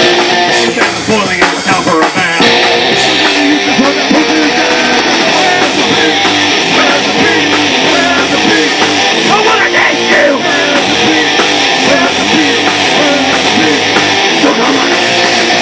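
A band playing live through amplifiers: distorted electric guitars, bass and a drum kit. The sound gets fuller and brighter about two and a half seconds in and stays dense after that.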